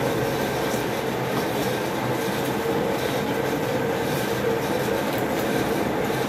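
Steady machine-like noise with a faint low hum, holding at one level throughout.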